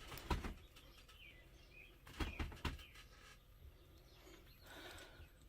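A few light clicks and taps of small metal hardware, washers being worked off a bolt, in an otherwise quiet stretch. There is a click just after the start and a quick cluster of three about two seconds in.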